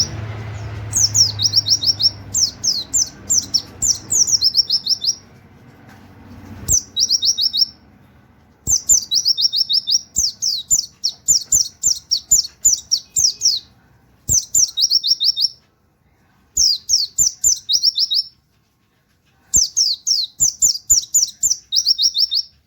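A pleci (white-eye) singing its rapid canary-like 'wit wit' song: runs of quick, high notes, each sliding downward, several a second, in phrases of one to five seconds with short pauses between, and a few soft clicks under them.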